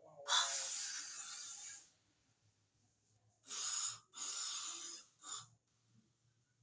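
Aerosol cleaner sprayed in hissing bursts onto a dirty throttle body: one long spray of over a second, then two shorter ones and a brief final squirt.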